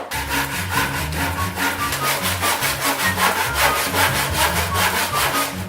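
Hand saw cutting grooves into a block of wood with quick, even back-and-forth strokes, about five a second.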